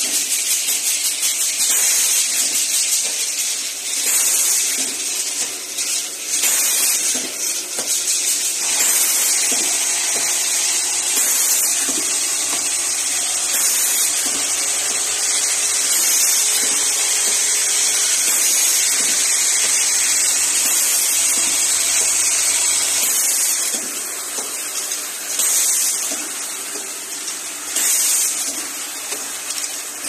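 Vial filling and capping machine running: a steady high hiss that swells in brief surges every few seconds.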